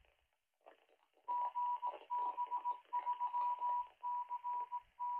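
A 1 kHz Morse-code tone keyed on and off in short and long elements, heard through the Retevis RA685 handheld's small speaker with a thin, narrow sound. It is the 2-metre amateur repeater sending its identification as the transmission times out.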